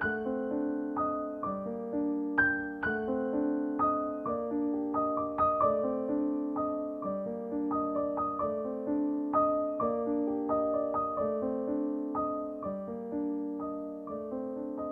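Solo piano playing background music, notes struck about two a second and left ringing as they fade.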